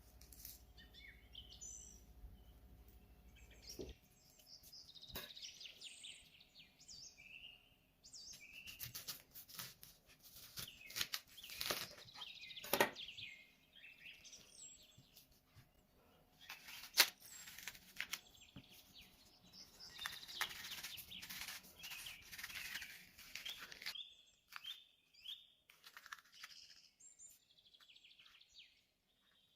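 Birds chirping faintly and repeatedly, short quick calls, with scattered sharp clicks and knocks; the loudest is a single click about seventeen seconds in. A low hum underneath stops about four seconds in.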